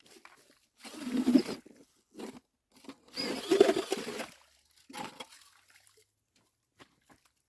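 Boots crunching and sloshing through wet slush on lake ice in four uneven bursts. The loudest come about a second in and around three and a half seconds in.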